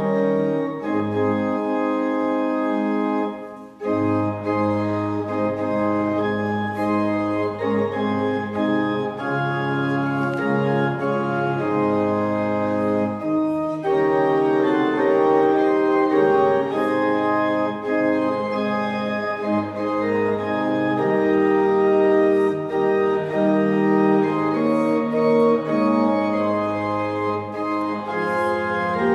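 Organ playing slow, sustained chords, with short breaks between phrases about four seconds in and again near fourteen seconds.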